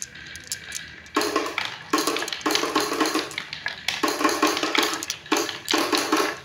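Marbles rolling down the wooden slope ramps of a HABA-style marble run, a rolling clatter that starts about a second in and comes in several stretches broken by short pauses.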